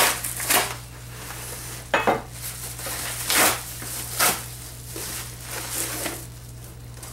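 Hands rummaging in an opened cardboard shipping box, with several short rustles and clacks as packing and plastic disc cases are handled and lifted out. A steady low electrical hum runs underneath.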